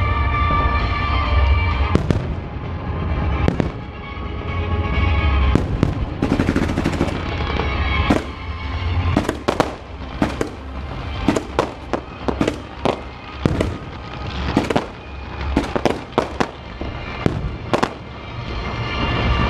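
A fireworks display: shells bursting in a run of sharp bangs and cracks over music, the bangs coming thick and fast in the second half.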